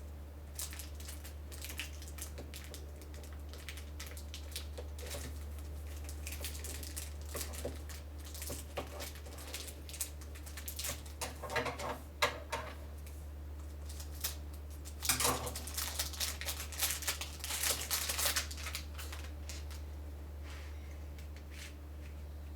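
Scattered plastic clicks, scrapes and rustles from handling a new X-Man Volt Square-1 puzzle, busiest around the middle and again in the last third, over a steady low hum.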